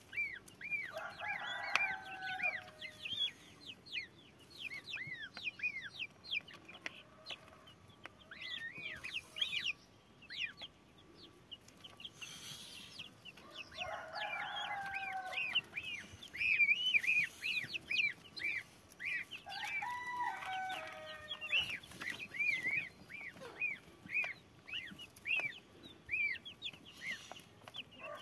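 Goslings and half-grown chickens peeping almost without pause in short, high, arched calls while they feed. Three longer, lower drawn-out calls stand out: about a second in, near the middle, and about two-thirds of the way through.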